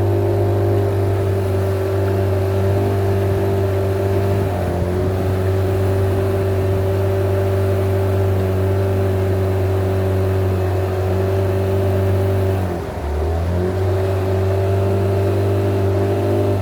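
Boat motor running at a steady speed. About three-quarters of the way through it drops briefly in pitch and level, then picks back up.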